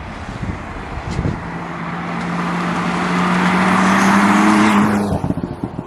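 Stage 1-tuned BMW M4's twin-turbo straight-six accelerating under load, the engine note rising slowly in pitch and growing louder for about four seconds, then cutting off abruptly a little after five seconds in.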